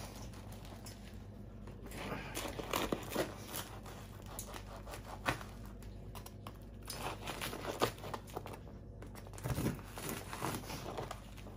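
Knife sawing lengthwise through a crusty baguette: irregular crunching and crackling of the crust as the blade works along it.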